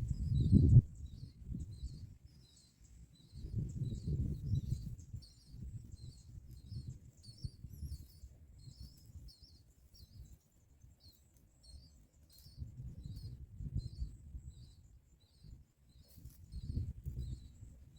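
A bird chirping over and over, short high chirps about two a second without a break, under low, uneven rumbling and thumping that is loudest in the first second.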